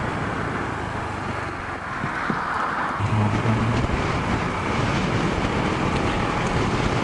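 Honda ADV150 scooter's single-cylinder engine running under wind rush on the rider's microphone while riding. The engine note comes up stronger and steady about three seconds in.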